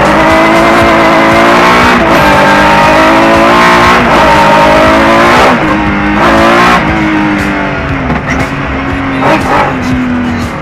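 Rallycross car engine at full throttle, heard from inside the cabin, climbing in pitch and upshifting about every two seconds. After about five and a half seconds it eases off into shorter rises and dips as the car slows and turns.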